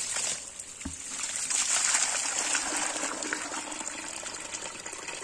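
Water pours out of a plastic bucket onto wet paving slabs. Then backwash water from a sand filter's discharge hose runs steadily into the bucket, getting stronger again about a second and a half in.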